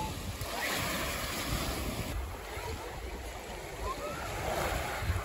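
Small waves breaking and washing over a shingle beach, with wind buffeting the microphone.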